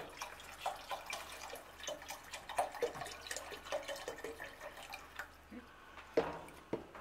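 Chicken broth pouring from a carton into a stainless steel stockpot of soup, a splashing, dripping stream. The pour stops about five seconds in, and two sharp knocks follow near the end, the first the loudest.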